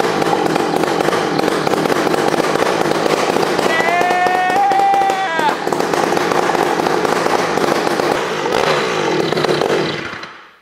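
Rebuilt Rokon two-stroke engine running on its own power after being pull-started, a loud, rapid crackling exhaust. About ten seconds in it is cut with the kill switch and dies away. A voice shouts briefly over it about four seconds in.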